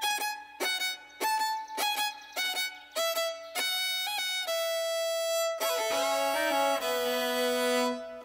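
Background music led by a fiddle: a run of short, separate notes about every half second, then long held notes from about halfway.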